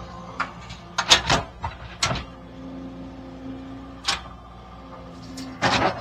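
Skid steer (compact track loader) running with a steady engine hum as its grapple moves in on the truck, with a handful of sharp clanks and knocks, the loudest cluster near the end.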